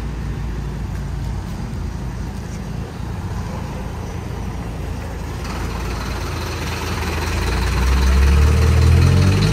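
Diesel engine of a light tipper truck running at low speed close by. It gets steadily louder as the truck comes past, and its pitch rises near the end as it pulls away.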